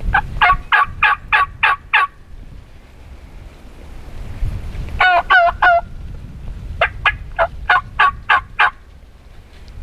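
Turkey yelping in three runs of sharp, evenly spaced yelps, about four a second: a run of about seven, a shorter run of four lower, bending notes around the middle, and a run of about eight near the end.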